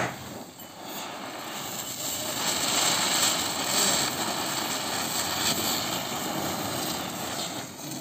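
Ayaan Ninja Chakkar ground-spinner firework burning: several spinners whirl on the ground with a continuous hissing whoosh that grows loudest around three to four seconds in and dies away near the end.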